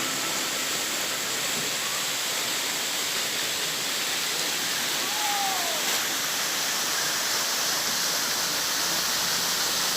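Rushing water, a steady full hiss of a waterfall or fast stream. About halfway through comes a single short arched whistle.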